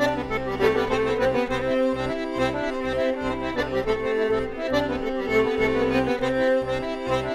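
Castagnari diatonic button accordion (melodeon) playing a lively traditional dance tune, with a fiddle playing alongside it.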